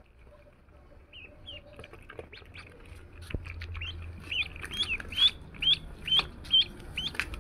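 Ducklings peeping: a run of short, high peeps, faint at first and growing louder and more frequent from about three seconds in, about two a second at the loudest.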